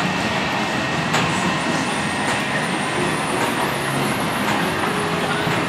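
Mine-train family roller coaster rolling past close by on its steel track: a steady rumble of wheels on rail, with a couple of faint clicks.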